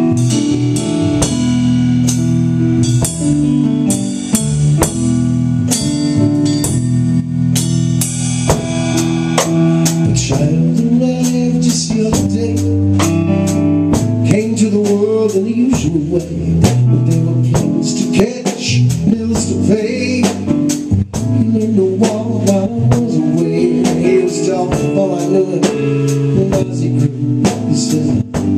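Live drum-and-keyboard duo playing a song: a Sonor drum kit keeps a steady beat under Korg keyboard chords. A man's lead vocal comes in about ten seconds in.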